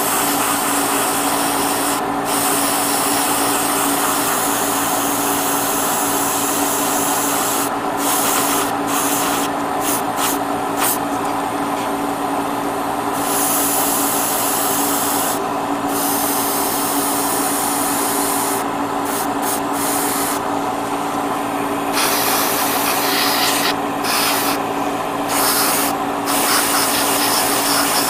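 Airbrush hissing as it sprays paint onto a plastic model kit, cutting out briefly several times between passes. Under it runs the steady hum of a spray booth's extractor fan.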